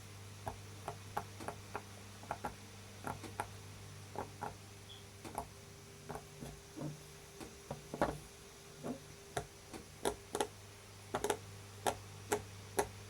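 Bubbles of a stiff silicone pop-it fidget toy being pressed one after another, a string of sharp pops at an uneven two or three a second. A room fan hums steadily underneath.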